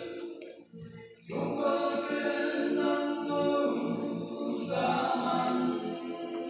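A small group of male voices singing a song together in harmony; they break off briefly just before the one-second mark and then come back in together.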